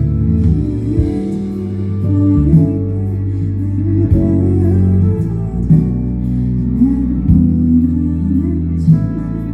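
Live performance of a slow pop ballad: band accompaniment led by guitar, with singing at times.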